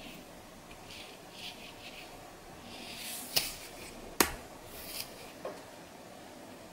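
A fine-toothed metal nit comb scratching through hair against the scalp, scraping dandruff flakes loose in short, soft strokes. Two sharp clicks come in the middle, the second the louder.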